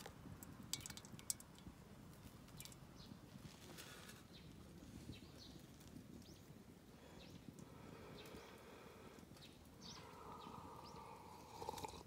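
Near silence: quiet outdoor ambience with a few small, sharp clicks about a second in and a faint pitched call toward the end.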